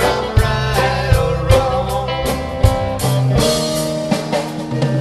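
Live reggae band playing: electric guitars and a drum kit over a low bass line, with regular drum hits marking the beat.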